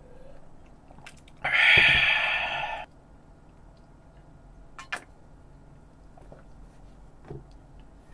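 A loud, breathy 'kaaa' exhale, about a second and a half long, right after gulping down beer. A sharp click about five seconds in and a softer knock near the end follow, from tableware being handled.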